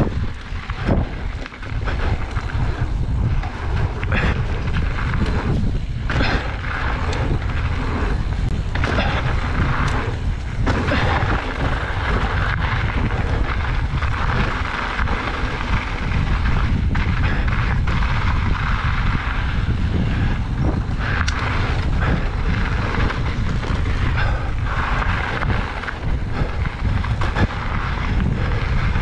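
Mountain bike being ridden on a dirt trail: wind buffeting the camera's microphone in a heavy low rumble, with tyre noise on the dirt and frequent short knocks and rattles as the bike goes over bumps.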